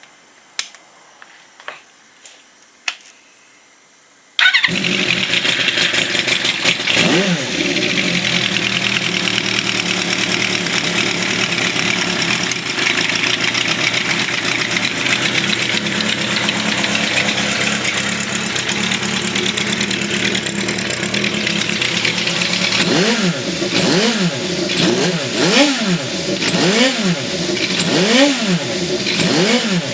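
Honda CB400F air-cooled inline-four motorcycle started up through a Custom Paranoia machine-bent exhaust with a medium silencer, after a few light clicks. The engine catches about four seconds in and idles steadily, with one rev soon after. Near the end it is blipped repeatedly, about once a second.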